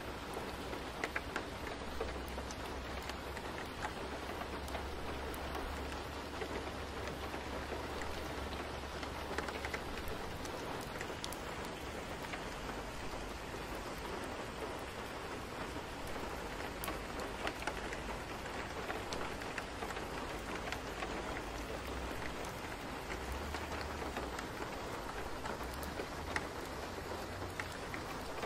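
Steady rain-like ambient noise with many small drop ticks, and a low rumble that comes and goes underneath.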